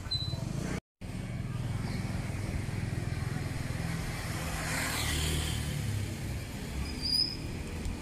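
Street traffic: motorbike engines running and passing, a steady low rumble that swells about midway, with a brief high squeak near the end.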